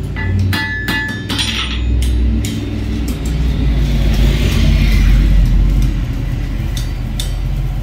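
A blacksmith's hammer striking metal on the anvil, a few quick ringing blows in the first second and a half. Under them runs a low rumble that grows louder in the middle.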